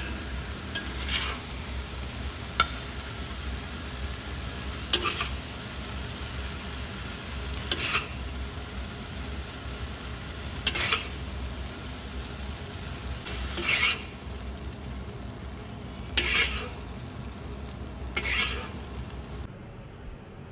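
Stir-frying in a wok: a steady sizzle, with a spatula scraping across the pan and turning the food every two to three seconds. The sound cuts off near the end.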